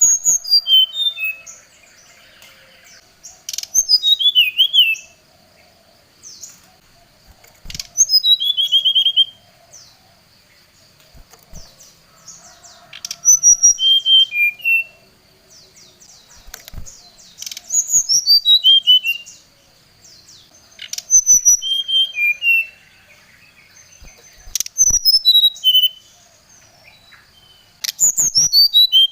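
Brown-chested jungle flycatcher singing a repeated phrase of clear whistled notes that step quickly downward in pitch, about once every four seconds, with a sharp click beside some phrases. This is the loud, agitated song that keepers play to provoke other birds into singing back.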